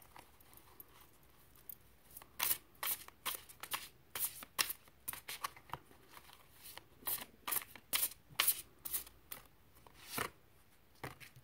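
A deck of reading cards being shuffled by hand: a run of quick, irregular papery slaps and flicks that starts about two seconds in and stops shortly before the end.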